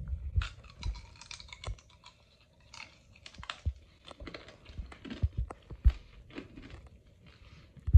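A person biting and chewing tanghulu, skewered fruit coated in a hardened sugar-candy shell: irregular crunching and cracking of the glassy shell, with a few louder snaps between about three and six seconds in.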